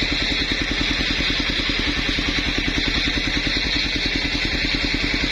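Small engine powering a circular saw rig, running steadily with a fast, even pulsing beat under a constant high hiss.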